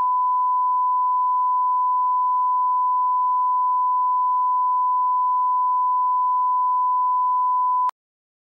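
Steady 1 kHz sine test tone, the line-up tone played with colour bars so that audio levels can be set. It holds one unchanging pitch and level, then cuts off abruptly near the end.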